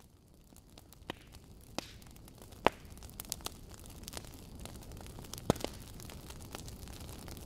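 Crackling fire: a low, steady rush of flames with sharp, irregular pops and snaps, growing louder over the first few seconds.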